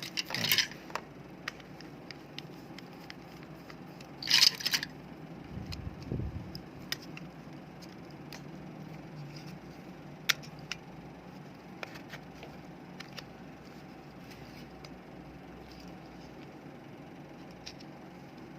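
Plastic remote-control casing being handled and pried at: a few clicks, a short scraping crackle about four seconds in, then scattered single clicks, over a faint steady hum.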